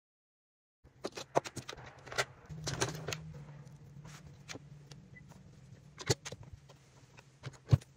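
Scattered clicks and light knocks of fabric being handled and positioned at a Singer Heavy Duty sewing machine, over a low steady hum. The sounds begin after about a second of dead silence.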